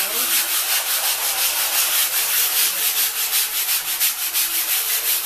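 Hand sanding a flat white board: sandpaper rubbed back and forth over the surface in quick, even strokes, several a second, making a steady scratchy hiss.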